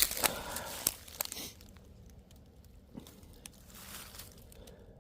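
Dry leaves and grass crunching and rustling, with a quick run of sharp crunches and clicks in the first second and a half, then faint rustling.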